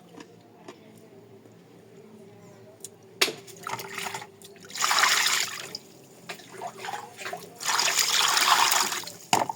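Water splashing in two bursts of about a second each, with a sharp knock before the first and another near the end.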